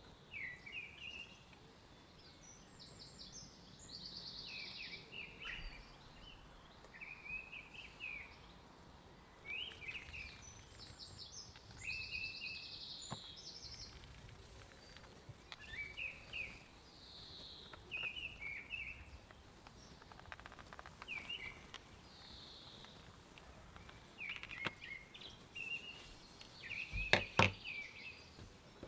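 Birds singing: short chirps and quick trills repeating every second or two. A couple of sharp knocks near the end.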